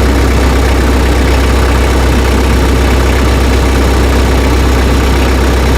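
Tractor engine running steadily and loudly, a constant deep hum with no change in speed.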